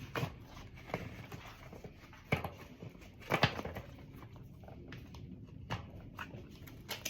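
Bicycle tyre being worked onto the wheel rim with a tyre lever and hands: scattered clicks and knocks, the loudest about three and a half seconds in.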